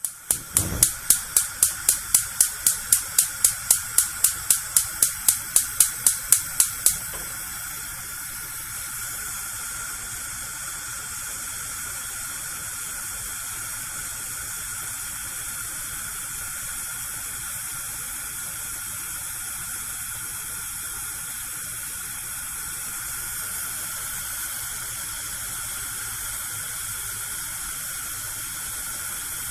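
Gas cooker burner being lit: the electric spark igniter clicks rapidly, about four times a second, for roughly seven seconds. Then the clicking stops and the burner's gas flame burns with a steady hiss.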